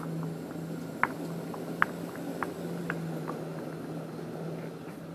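A basketball bouncing on a hard outdoor court, about six bounces that come quicker and quicker as it settles, over a steady low hum.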